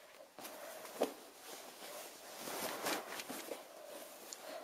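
Cloth blanket being pulled about and unfolded by hand, a continuous rustle with a light bump about a second in.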